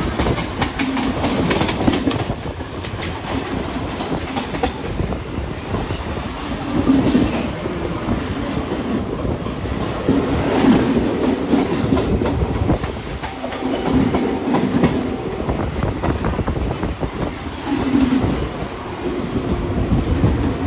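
Mumbai suburban electric local trains running on the line: a steady rumble with wheels clattering over rail joints in many sharp clicks, and a Western Railway local passing close alongside.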